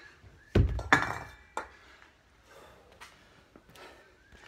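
A pair of 22 kg kettlebells set down on the floor at the end of a long-cycle set: a heavy thud about half a second in, then a ringing metallic clink as the bells knock, and a smaller knock shortly after.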